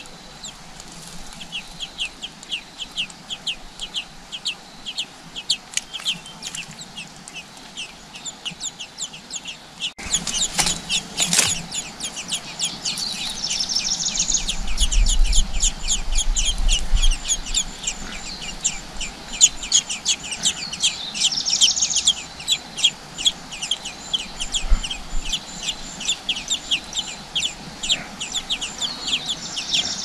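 Nestling songbirds begging: a dense run of short, high-pitched chirps repeating several times a second, louder from about ten seconds in.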